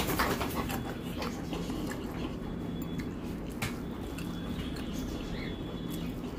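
Fingers squishing rice and curry together on a steel plate, with a few light clicks against the metal, over a steady low hum.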